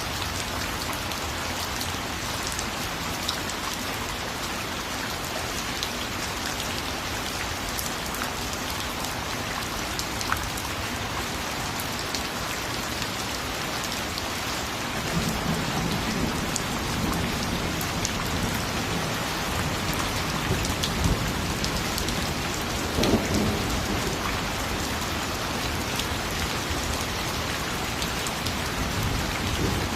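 Steady rain falling, an even hiss with scattered sharp drop ticks. About halfway through a low rumble of distant thunder comes in under it and swells briefly about three-quarters of the way through.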